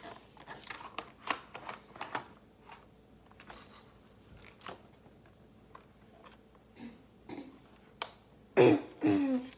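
Scattered light plastic clicks and taps from handling an airsoft speed loader. Near the end comes a short, loud vocal noise without words.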